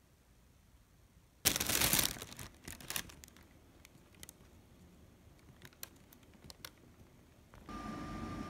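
A plastic bag crinkles loudly for about a second, then rustles and clicks lightly a few more times. Near the end a UV book sterilizer cabinet starts up with a steady hum and a thin high whine.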